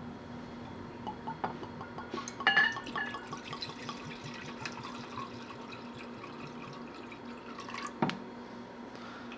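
Grain alcohol poured from a bottle into a glass Pyrex measuring cup, the liquid splashing and trickling into the glass, with a few clicks of bottle and cap handling and a sharp tap near the end.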